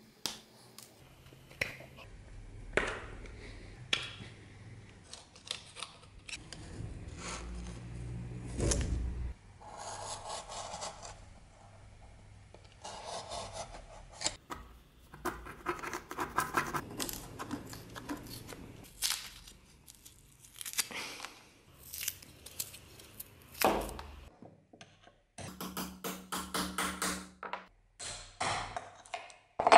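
Hand tools working an old dagger and its wooden scabbard: a utility knife cutting and scraping away the old wrapping on the handle, pliers picking at the scabbard, and a thin tool prying the scabbard halves apart. A string of short scrapes, cuts and clicks with brief pauses.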